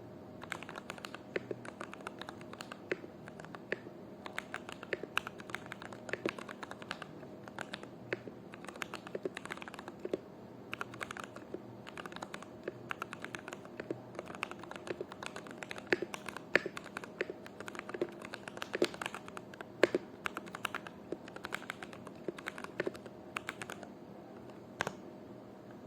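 Typing on an NJ68 mechanical keyboard with lubed SP Star Meteor Orange switches: a steady, irregular run of keystrokes with a few louder strokes, one standing out near the end.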